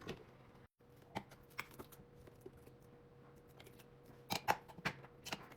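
Scattered light clicks and clatters of objects being handled, with several in quick succession about four seconds in, over a faint steady hum.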